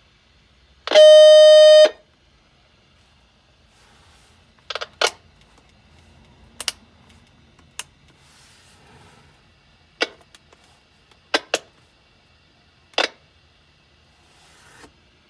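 Realistic Rover-1500 walkie-talkie giving a loud, buzzy one-second tone as its front button is pressed, followed by a string of sharp clicks as the switches and channel selector on its panel are flipped, with faint radio hiss between them.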